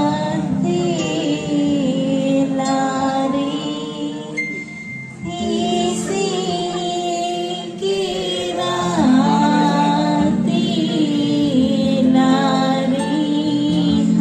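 A woman singing a melody into a microphone through a PA system, over sustained electronic keyboard chords, with a brief lull a little before the middle.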